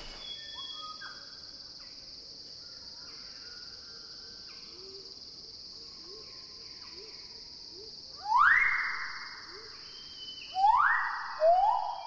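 Male magnificent riflebird giving three loud, clear whistles, each sliding up in pitch and then held. The first comes about eight seconds in and the other two close together near the end. Under them run a steady high insect drone and faint calls of other birds.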